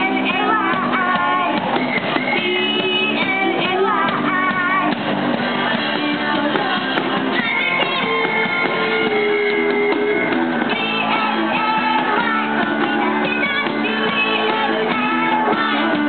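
A live rock band playing: a girl singing into a microphone over electric guitars and a drum kit played through small amplifiers.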